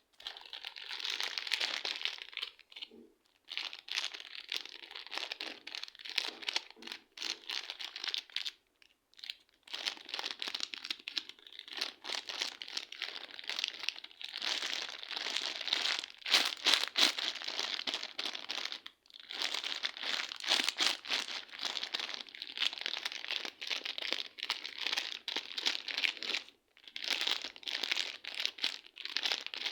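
Slime being squeezed, pressed and stretched by hand, with dense crackling and crunchy popping. A few brief pauses break it up.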